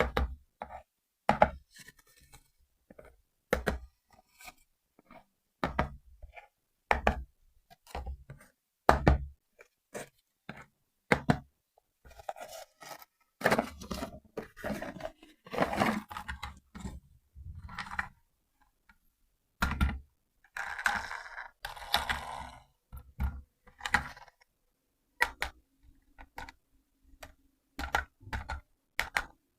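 Handling noises from unboxing a toy RC car: a long series of separate knocks, thunks and clicks, with two longer stretches of rustling and scraping about halfway through.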